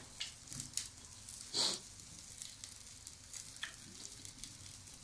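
Faint sizzling of meat cooking on an electric grill, with scattered crackles and one louder pop about one and a half seconds in.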